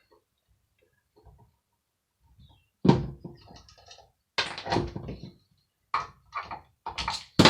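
Knocks and clanks of a hand air dryer's metal parts being handled and worked loose with hand tools. A sudden loud knock comes about three seconds in, then several more over the next few seconds, each with a brief ring.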